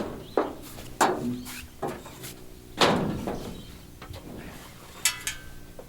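A series of about five sharp knocks and clanks, the loudest near the middle, with a brief ringing metallic clang about five seconds in, over a faint steady hum.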